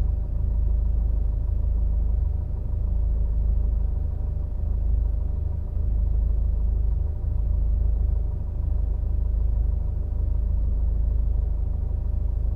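Car engine running steadily with a low rumble, its level swelling and easing slightly with no revving.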